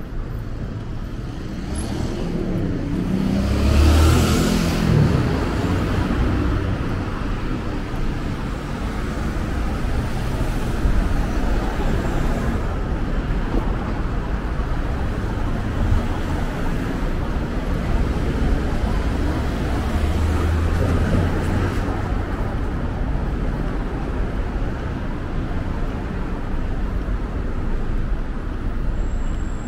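City street traffic: a continuous wash of passing cars, with a vehicle's engine passing close and loudest about four seconds in, and another passing around two-thirds of the way through.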